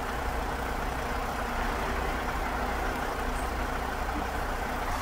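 Truck engines running steadily, a constant low rumble under an even hiss.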